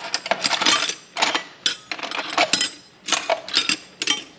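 Steel combination spanners clinking and clattering against each other as a gloved hand rummages through a tool-cart drawer, a quick irregular series of metallic clinks.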